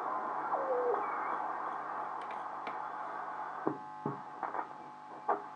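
VE301W Volksempfänger valve radio's loudspeaker giving out weak radio reception: a steady hiss over a hum, with a gliding whistle that falls in pitch in the first second and a few sharp crackles near the end.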